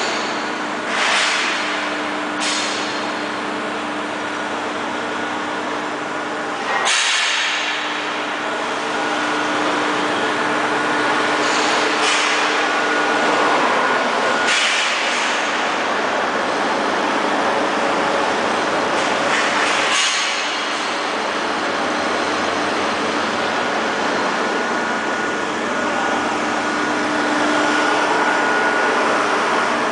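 PVC hot-and-cold mixer machine running: a steady mechanical hum with a held tone, broken by several sudden rushes of hiss, the strongest about seven seconds in and again around fourteen and twenty seconds.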